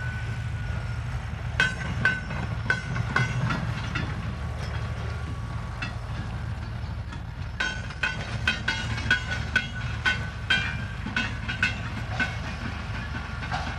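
Railway tank wagons rolling slowly over yard track: a steady low rumble with irregular sharp metallic clicks from the wheels passing over rail joints and points, each with a brief ringing tone, coming in two clusters.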